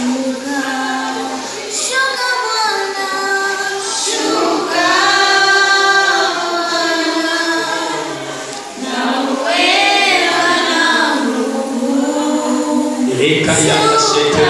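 A small group of women singing a hymn together into microphones, unaccompanied, in long held phrases.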